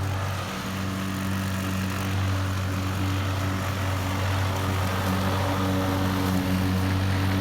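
Gas-powered lawn mower engine running steadily under load as it cuts grass, a constant low hum.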